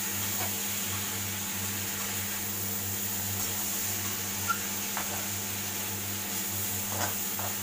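A spatula stirring cluster beans and potato pieces in a metal kadhai: faint frying sizzle over a steady low hum, with a few scrapes of the spatula against the pan about five seconds in and twice near the end.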